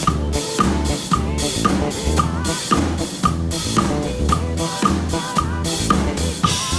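A drum kit and bass guitar playing a gospel groove: a steady backbeat of snare and kick hits about twice a second over held bass notes, with a wavering melody line above.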